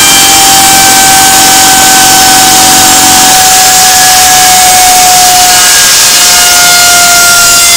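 3D-printed Tesla turbine with aluminium disks, driven by compressed air at 120 PSI, running at high speed: a loud hiss of rushing air with a high whine that slowly falls in pitch. A low hum underneath stops about three seconds in.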